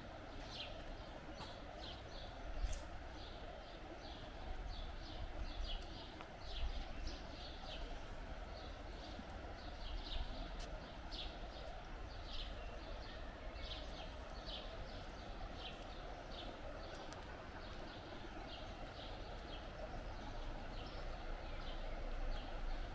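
Footsteps at a steady walking pace, about two a second, with a low rumble underneath.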